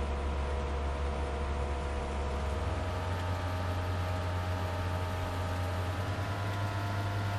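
Jet engine running on a test stand, heard from the control room as a steady deep drone with several steady tones over a hiss. The lowest tone steps up slightly about three seconds in.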